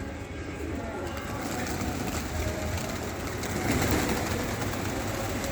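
Pigeons cooing.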